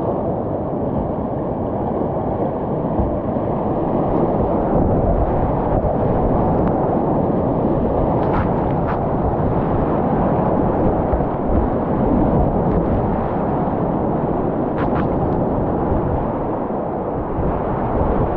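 Whitewater rapids rushing steadily around a kayak, a dense low-weighted rush of water, with a few faint clicks along the way.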